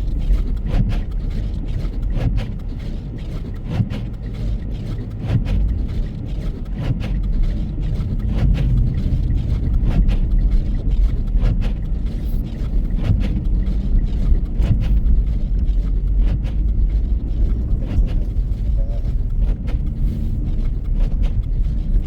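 Car driving on a snow-covered road: a steady low rumble of engine and tyres, with frequent short, irregular clicks and knocks.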